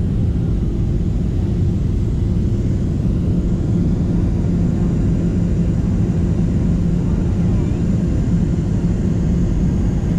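Steady cabin noise of a Boeing 737-700 in descent: the CFM56-7B turbofans and airflow make an even low rumble with a constant hum, heard from inside the cabin.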